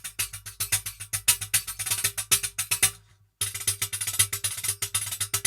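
Tambourine jingles built into the front playing surface of a Baterinho percussion box, struck with the hands in a quick rhythm. It comes in two phrases, with a short pause about three seconds in.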